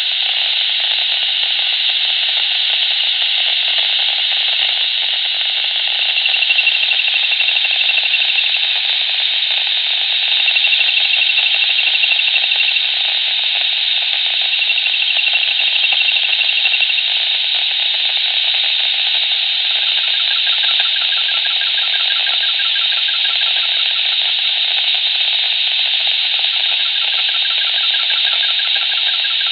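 PMR walkie-talkie speaker hissing with static. A fast-warbling high tone comes and goes three times for a couple of seconds each, and a rapid pulsing tone joins in the last third.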